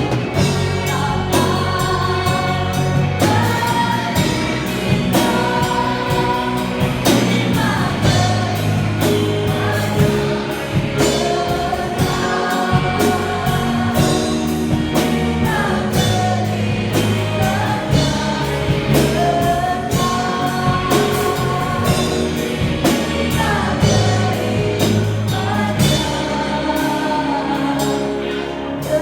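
Christian gospel song: a choir singing with band accompaniment and a steady drum beat.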